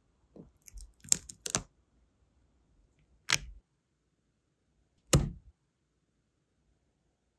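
Small sharp clicks and taps of hard objects handled while making a sealing-wax seal: a brass seal stamp and the hardened wax seal on a ceramic plate and stone coaster. There is a cluster of clicks about a second in, then single clicks at about three and five seconds.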